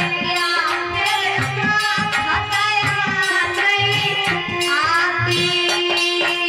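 A woman's voice singing a Hindi devotional bhajan through a microphone in long, gliding phrases, over a steady held drone note and rhythmic drum beats.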